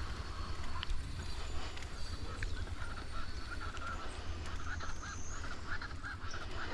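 A series of short repeated animal calls, about two to three a second, starting about midway, over a steady low rumble.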